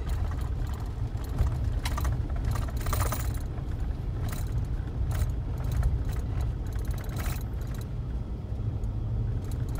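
Pickup truck heard from inside the cab, rolling slowly along a dirt road: a steady low rumble from the engine and tyres, with scattered short rattles and knocks as the truck goes over the bumps.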